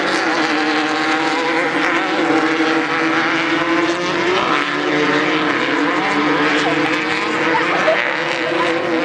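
Steady drone of engines, several even pitches held throughout with no rise or fall.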